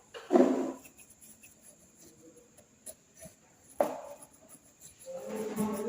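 Clear slime being squeezed and worked by hand: wet squelches with pitched, squeaky air-pocket pops, one near the start, one short one about two-thirds in, and a longer run of squelching near the end, with small clicks between.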